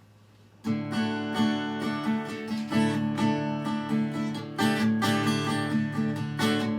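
Acoustic guitar strumming chords in the instrumental intro of a song, starting suddenly about half a second in.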